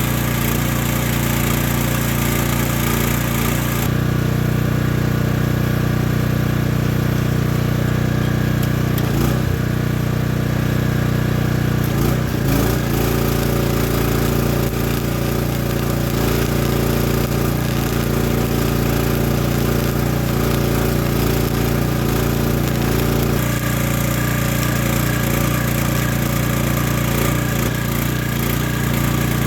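An engine running steadily, its tone shifting slightly a few seconds in and again near the end.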